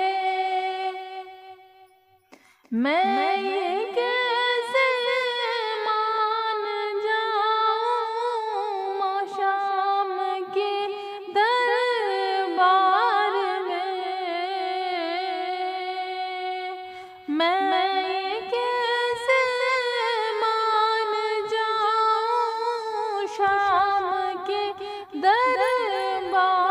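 A woman singing a naat without instruments, drawing out long, wavering, ornamented notes. The note at the start dies away about two seconds in, and after a short gap each new phrase opens with a rising swoop into the held line.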